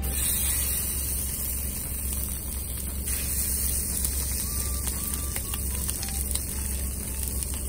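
Chicken thigh pieces sizzling in hot oil in a frying pan over a gas flame. The sizzle fills out about three seconds in as more meat goes into the pan.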